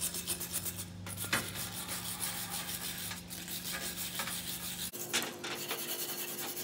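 Hand wire brush scrubbing loose rust off a rusty J.H. Williams wrench in quick back-and-forth strokes, steel bristles rasping on the pitted metal. A single knock about a second in.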